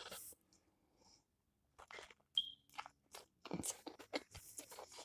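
Close, faint mouth sounds of a person chewing a mouthful of soft-shell taco: scattered wet clicks and smacks with some crunch. They start about two seconds in, after a short quiet, and come thicker toward the end.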